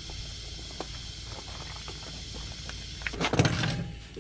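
Steady background hiss with a few faint ticks and knocks of tools and parts being handled, then about three seconds in a loud clatter lasting under a second.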